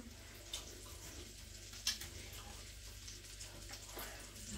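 A few soft plastic clicks and taps from a small seasoning shaker being handled, over a faint steady room hum; the clearest click comes a little under two seconds in.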